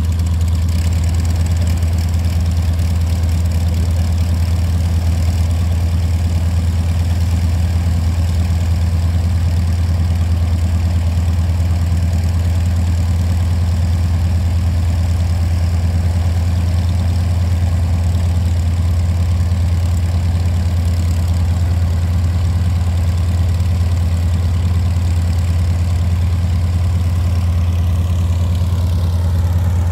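Yak-52's nine-cylinder M-14P radial engine idling steadily on the ground after start. A faint falling whine comes in near the end.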